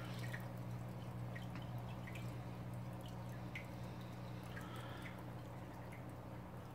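Reef aquarium's hang-on-back AquaClear 110 filter running: water spilling back into the tank with faint scattered drips, over a steady low pump hum.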